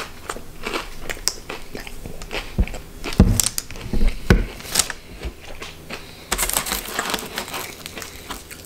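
Close-up chewing and biting of crisp deep-fried batter on a haddock fillet, with many short crunchy clicks. A few dull thumps come about three to four seconds in, and a denser crinkling rustle near the end as a battered piece is picked up off the paper-lined tray.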